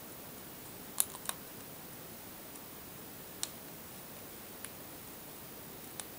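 Hands handling hair and a small clear elastic band: a few short, sharp clicks, the loudest about a second in, over a steady faint hiss.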